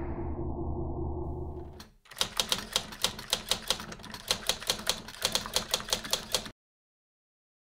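Typewriter keystroke sound effect: rapid clicks, about five a second, that stop abruptly near the end. Before it, a low rumble fades out over the first two seconds.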